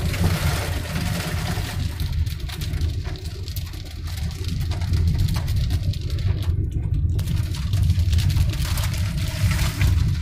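Car driving over a wet, hail-covered road, heard from inside the cabin: a steady low rumble of engine and tyres with a hiss and crackle of water and ice on top.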